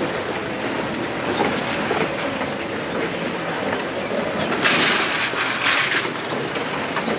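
Wheels of a Coleman rolling cooler rumbling and clacking steadily over stone paving tiles as it is pulled along. A louder burst of hiss comes in about four and a half seconds in and lasts over a second.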